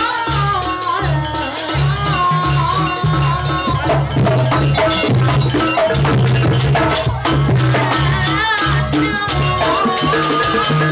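Live Javanese gamelan playing: bronze metallophones and hanging gongs struck in a steady beat, driven by a large hand drum. For the first few seconds a high melodic line slides and bends above the ensemble.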